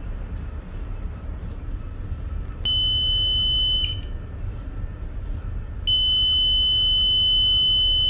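Water ingress alarm panel buzzer sounding a steady high-pitched tone while its lamp/buzzer test button is pressed. It sounds once for about a second, then starts again about six seconds in and holds on. A low steady hum runs underneath.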